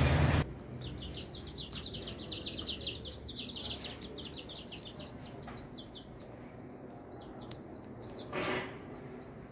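A bird chirping: a fast run of short, high, falling chirps that thins out to a few scattered ones after about six seconds. A brief rushing noise comes near the end.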